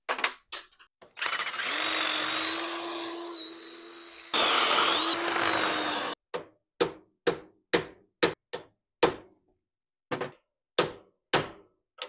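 Cordless drill running steadily for about five seconds with its bit against a steel car-door hinge clamped in a bench vise. The drill stops, and a ball-peen hammer then strikes the hinge about a dozen times, roughly two blows a second.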